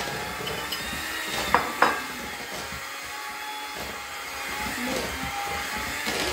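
Electric hand mixer running steadily with its beaters in a bowl of cookie dough, with two sharp clicks about a second and a half in.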